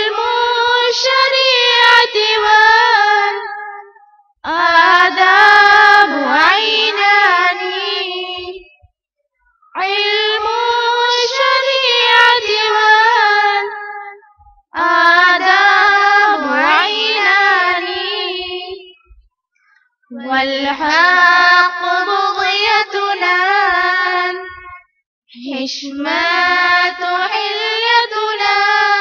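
A single high voice singing an unaccompanied Arabic nasheed, in six long melodic phrases with ornamented runs and brief pauses for breath between them.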